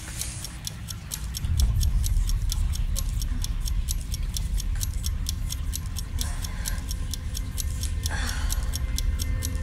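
Quick, even clock-like ticking, about four ticks a second, over a low rumbling drone that swells about a second and a half in: a ticking suspense soundtrack.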